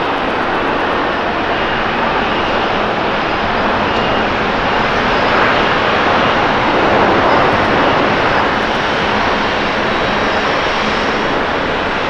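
Airbus A350-900 airliner's Rolls-Royce Trent XWB jet engines rushing steadily as it rolls out just after touchdown, the noise swelling about six to eight seconds in and then easing slightly.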